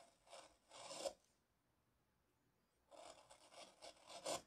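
Small carving gouge pushed by hand through beech, paring shallow grooves: faint short scraping cuts. There are two in the first second, then a quick run of several cuts about three seconds in, the last of them the loudest.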